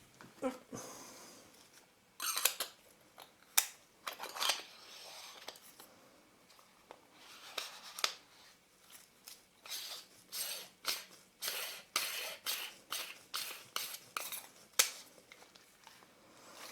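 Small metal lens parts and tools being handled: scattered clicks, clinks and brief scraping, with a quicker run of clicks in the second half.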